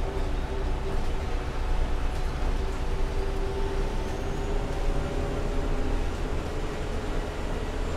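Heuliez GX 317 GNV city bus's natural-gas engine running at steady revs, a low rumble with a steady hum.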